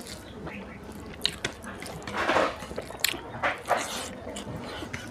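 Close-miked eating by hand: fingers squishing rice into curry gravy, and chewing with wet mouth clicks and smacks. The loudest moment is a wet, squishy swell a little over two seconds in.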